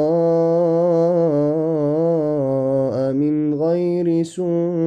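A male reciter chanting the Quran in melodic tajwid style, drawing out long held notes with gently wavering ornaments, with brief breaks about three and four seconds in.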